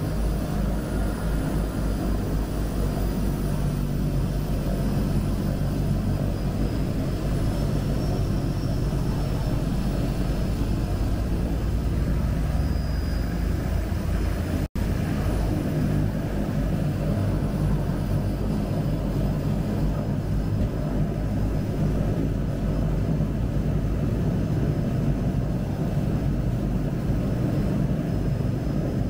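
De Havilland Canada DHC-6 Twin Otter floatplane's turboprop engines and propellers running with a steady low drone, heard from inside the cabin as it taxis on the water. The sound cuts out for a moment about halfway.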